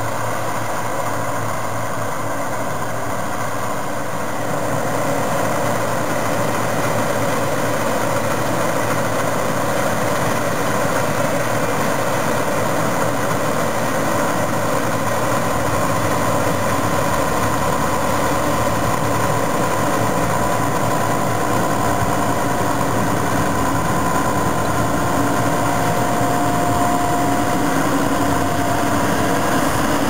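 Claas combine harvester and John Deere tractor engines running together as the combine unloads grain into a trailer on the move. A steady engine drone that grows a little louder about five seconds in.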